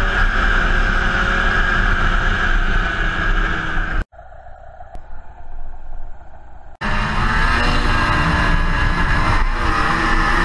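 A 2007 Polaris IQ 600 HO snowmobile's two-stroke twin engine running at trail speed, heard with wind rush. The sound cuts abruptly to a much quieter engine about four seconds in. It cuts back loud about three seconds later, climbing in pitch as the sled accelerates.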